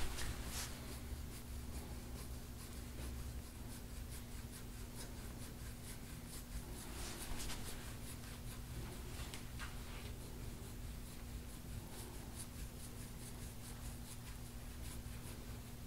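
A gua sha scraping tool stroked again and again over oiled skin on the back, giving a faint, scratchy rasp with each stroke. A few strokes are louder: at the very start, around seven seconds in and near ten seconds.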